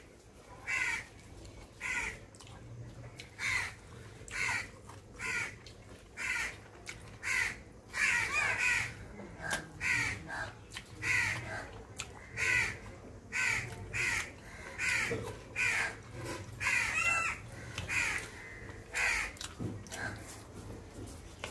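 Crows cawing over and over, about one short harsh call every second.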